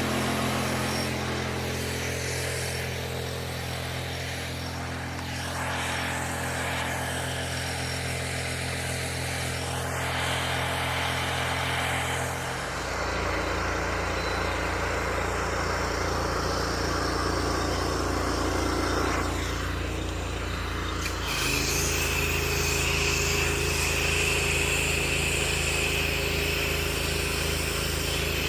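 Engine-driven pressure washer running steadily, its engine note changing abruptly about twelve seconds in and again about twenty-one seconds in as the load on the pump changes. A steady high hiss joins at the second change.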